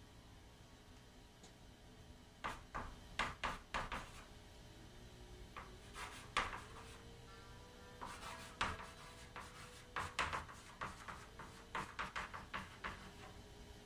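Chalk writing on a wall-mounted chalkboard: clusters of short scratching and tapping strokes, starting about two seconds in and going on to near the end.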